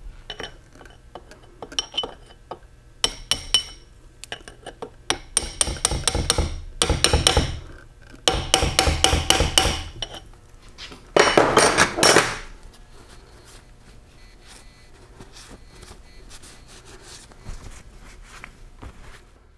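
A hammer tapping a sealant-coated tapered steel pin into its hole to lock the shifter shaft of a Super T10 four-speed transmission: a few light taps, then three runs of rapid ringing metal-on-metal strikes, then a few lighter taps near the end.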